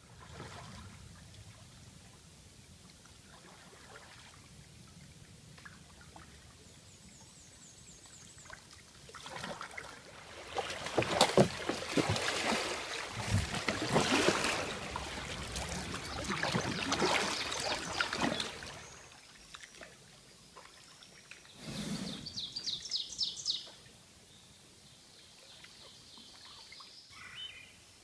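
Double-bladed kayak paddle dipping and splashing in the river as a kayak passes close by, with water washing at the bow; the splashing starts about ten seconds in and runs for about nine seconds. A short rapid rattle follows a few seconds after it.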